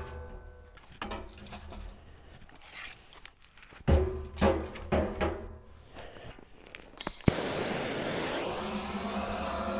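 Split firewood knocking and clunking as it is stacked into a steel barrel stove's firebox. About seven seconds in a sharp click is followed by a steady hiss: a handheld gas torch being lit to start the fire.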